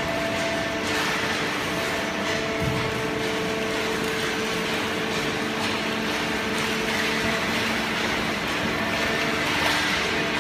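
Horizontal waste-paper baler line with its feed conveyor running: a steady machine hum with several held tones over a broad rush of noise.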